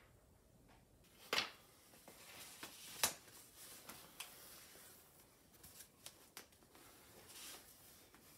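Faint handling sounds of a hanging scroll being taken down: a sharp click about a second and a half in and another about three seconds in, lighter ticks between, and a soft rustle of the scroll near the end.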